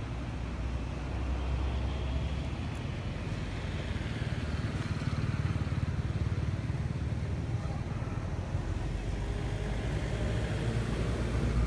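A motor vehicle passing by, its engine and tyre noise swelling over a few seconds, easing, then rising again near the end, over a steady low rumble.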